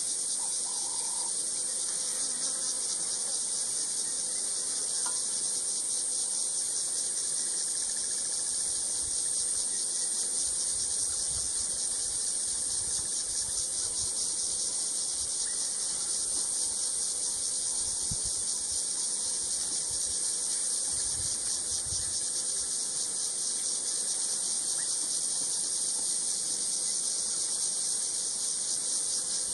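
Steady, shrill chorus of insects, a continuous high-pitched buzzing trill with a fast pulse.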